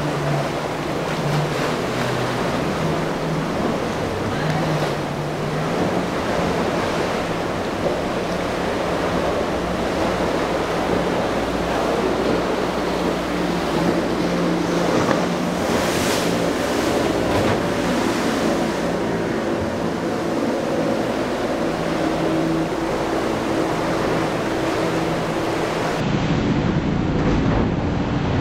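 Outboard motor of a small center-console boat running steadily through choppy inlet water, its hum under the rush of breaking waves and wind on the microphone.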